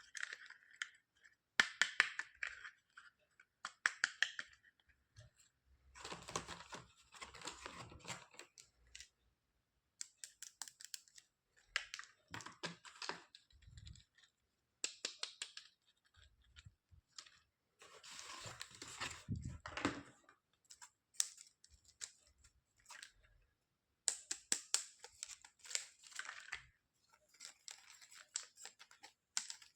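Toy packaging being opened by hand: plastic and paper crinkling and tearing in repeated short bursts with brief pauses between, mixed with sharp clicks and snips.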